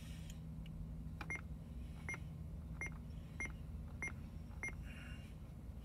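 Corvette C6 Z06 instrument-cluster chime beeping six times in an even rhythm, about one and a half beeps a second, over a low steady hum.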